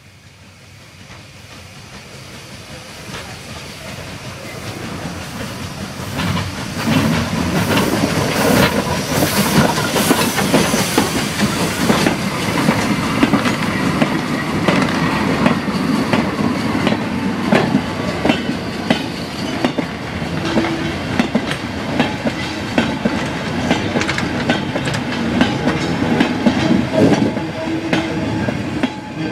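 Steam tank locomotive hauling a goods train, growing louder as it approaches, then a line of short-wheelbase freight wagons rolling past close by, their wheels clattering over rail joints and a level crossing in a steady run of sharp clicks.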